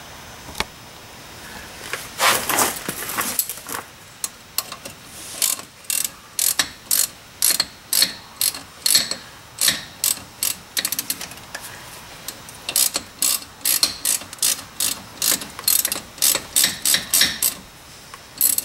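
Hand ratchet wrench clicking in quick back-and-forth strokes, about two a second, as it runs in the brake caliper's Allen-head mounting bolts, with a short pause partway through.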